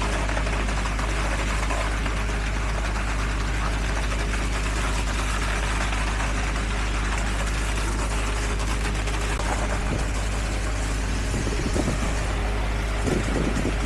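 Heavy diesel construction machinery running steadily, with a few short knocks from about ten seconds in.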